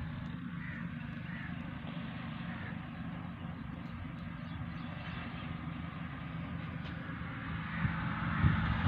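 Slow-speed 20 HP desi 'Kala' oil diesel engine running steadily, a low, even mechanical drone. It grows louder with a few knocks near the end.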